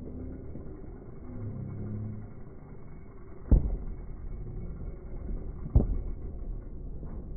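Fireworks shells bursting: two deep booms a little over two seconds apart over a steady low rumble.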